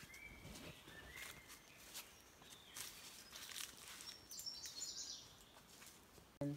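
Faint footsteps on a stone-stepped forest trail, with birds calling: two short whistled notes in the first second and a half, and higher chirps about four to five seconds in.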